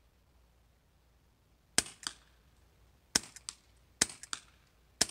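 Four shots from a CO2-powered .177 Crosman Vigilante revolver, each a sharp pop followed about a third of a second later by a fainter crack. The shots come roughly a second apart, the first about two seconds in.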